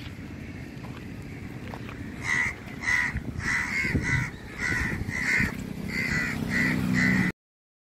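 A crow cawing over and over, about ten short calls starting a couple of seconds in, over a steady low rumble. The sound cuts off suddenly shortly before the end.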